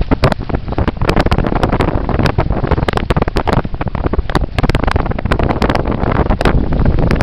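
Wind buffeting the microphone of a small sailing catamaran running fast through choppy water, with water rushing past the hulls and many irregular sharp slaps and knocks of spray and chop.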